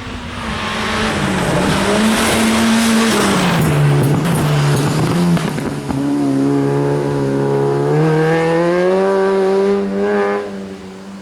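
A competition car's engine is driven hard. Its pitch drops about four seconds in, then climbs steadily under acceleration and cuts back near the end. Tyre squeal and scrub hiss over the first few seconds.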